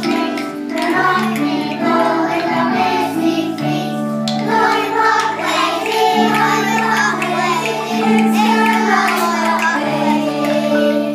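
A group of young children singing a nursery song together over a musical accompaniment of long, steady low notes.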